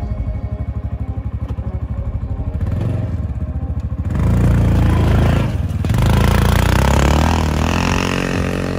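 Motoleader youth side-by-side UTV engine running low with a rapid, even putter, then revving up suddenly about four seconds in as the vehicle pulls away. It eases off for a moment and then climbs in pitch again while accelerating.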